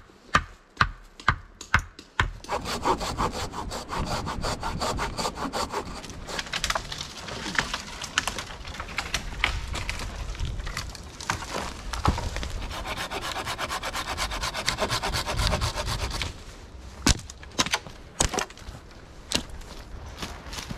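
Hand saw cutting through a wooden pole in quick back-and-forth strokes for about fourteen seconds. Before it and near the end come a few sharp wooden knocks.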